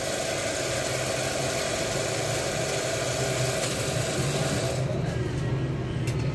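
A steady low mechanical hum under an even hiss. The hiss drops away about five seconds in, leaving the hum.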